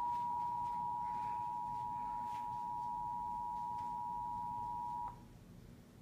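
Emergency Alert System two-tone attention signal: two steady pitches sounding together, marking the start of a Severe Thunderstorm Warning. It cuts off suddenly about five seconds in.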